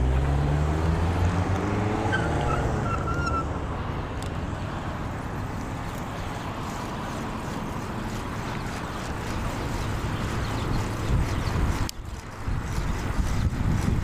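A car or other motor vehicle passing in the first few seconds, its engine note climbing in pitch and then dropping away. After that comes steady wind and road noise from riding a bicycle.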